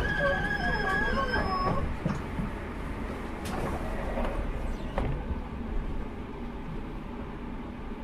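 Inside a JR Hokkaido 789 series 1000 train car: a low steady hum from the train. In the first two seconds a high warbling tone sounds over it, and a couple of light knocks follow later.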